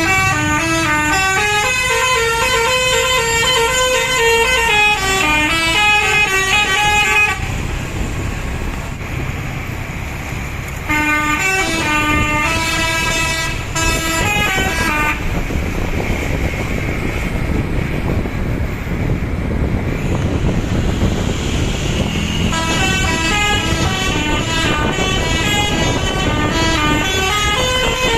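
Bus telolet horn playing a multi-note melody in three long stretches, its pitch stepping up and down like a tune. In the gaps, bus engine and road noise.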